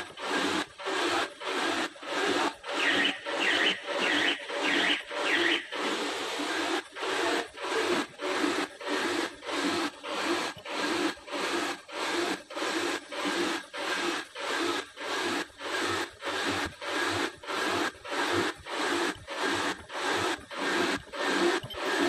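A servo-driven zipper slider bag making machine running at high speed. It makes a rasping mechanical rush that breaks off briefly about twice a second, one break per machine cycle. A brighter hiss joins in for a couple of seconds a few seconds in.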